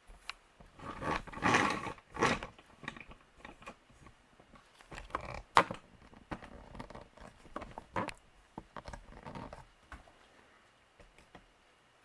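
Rustling and knocking handling noise around a Harbor Breeze Troches ceiling fan, then a sharp click about five and a half seconds in, the fan's pull-chain switch being pulled to turn the fan on. A faint steady tone comes in after the click, and the noise dies down near the end.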